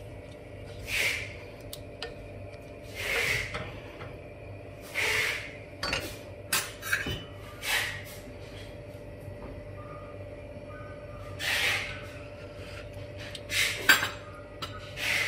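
A wooden spoon stirs and scrapes in a stainless-steel pot of simmering rendang, with short soft rushes of noise every couple of seconds and a few light clicks against the pot, over a faint steady hum.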